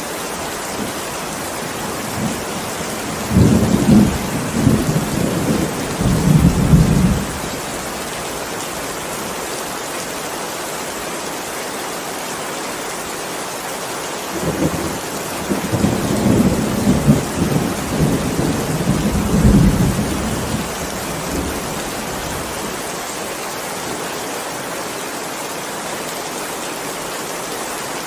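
Heavy rain falling steadily, with two rolls of thunder: a rumble about three seconds in lasting some four seconds, and a longer one from about fourteen seconds in lasting some six seconds.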